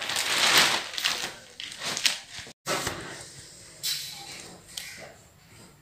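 Clear plastic wrapping rustling and crinkling as it is pulled off a freshly unpacked vacuum-packed spring-bed mattress, loudest in the first second or so, broken off briefly about halfway, then fainter.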